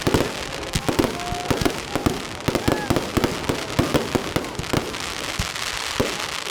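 Fireworks going off: a rapid, irregular run of sharp bangs, several a second, over continuous crackling.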